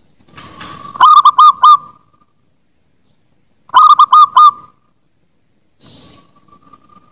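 Zebra dove (perkutut) cooing: two phrases, each a quick run of four hooked, rolling notes, the first about a second in and the second about four seconds in. A soft hiss comes before the first phrase and again near the end.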